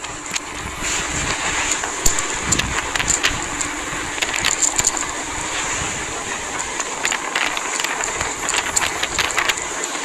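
Fishing boat under way in rough sea: waves and spray splashing against the hull with many sharp crackles, over the steady running of the boat's engine.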